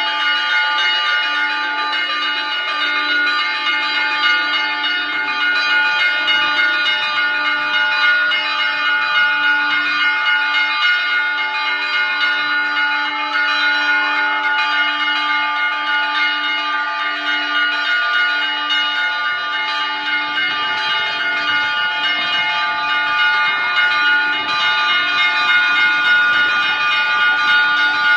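Church bells ringing continuously, with many ringing tones overlapping in a steady wash and no pauses.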